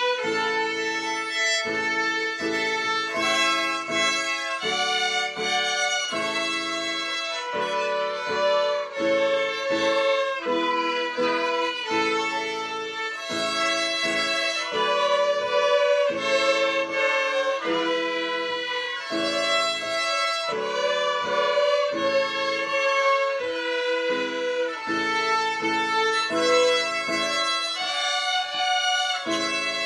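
A group of young fiddlers playing a tune in unison on violins, bowing separate notes in a steady, even rhythm.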